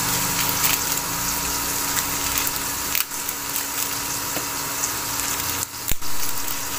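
Chopped chicken intestines sizzling in hot oil in a pot: a steady frying hiss over a faint steady hum, with a single knock near the end.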